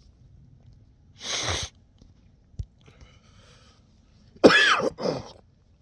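A man coughing, two pitched hacks close together about four and a half seconds in. Before them come a short breathy burst and a single sharp click.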